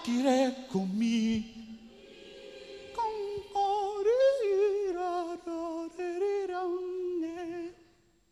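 Male jazz vocalist singing wordless improvised phrases a cappella into a microphone, with notes that bend and waver and one held for several seconds. The singing stops abruptly near the end.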